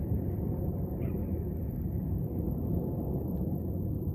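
Jet airliner's engines heard from a distance: a steady low rumble.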